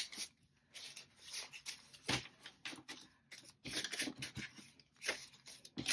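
Paper bills and cash envelopes being handled: irregular short rustles, slides and light taps.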